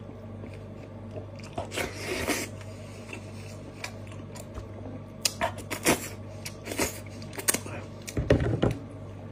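Close-up mouth sounds of eating steamed sheep's head: wet chewing and sucking with sharp clicks and smacks, and meat being torn off the head by hand, with a few heavier low thuds near the end. A steady low hum runs underneath.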